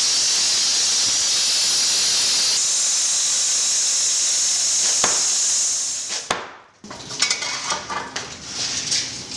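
Power saw cutting into a concrete wall, running steadily with a loud high hiss, then winding down about six seconds in. After it stops come irregular scraping and knocking sounds.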